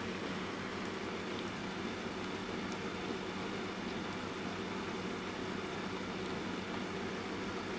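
Electric fan running steadily, mixed with soft rain: a constant, even noise with no change in level.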